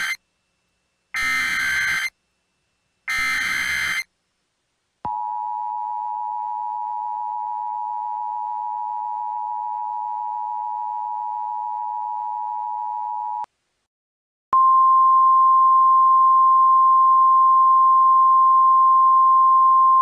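Emergency Alert System alert tones. First comes the end of one burst of SAME header data, then two more about a second apart, each a harsh buzzing digital chirp about a second long. About five seconds in the two-tone attention signal starts and holds for about eight seconds. After a second's gap a single steady tone follows.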